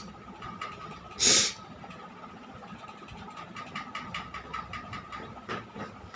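A person's sneeze: one short, loud, noisy burst about a second in, induced by tickling the nose. It is followed by a run of quick faint clicks and rustles over a faint steady high tone.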